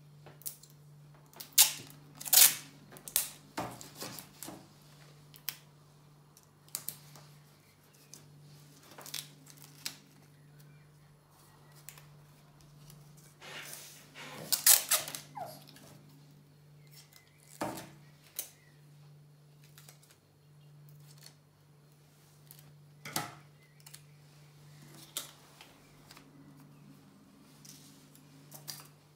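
Sticky tape pulled off its roll and torn off in short ripping bursts, with scattered taps and rustles of paper and straws handled on a table. The loudest rips come about two seconds in and again around fifteen seconds in, over a low steady hum.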